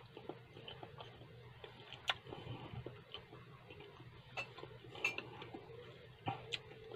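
A person chewing food with mouth closed, with quiet mouth sounds and several sharp clicks: one about two seconds in and a few more in the second half.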